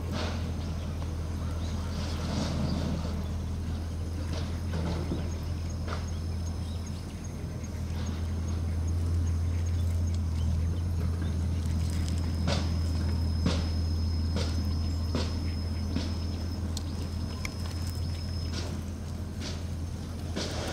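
Scattered light clicks and crunches of dogs' paws on gravel, over a steady low hum. A faint thin high whine sounds for several seconds in the second half.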